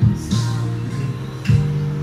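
Background music: plucked guitar over held low bass notes that change about every half second to second.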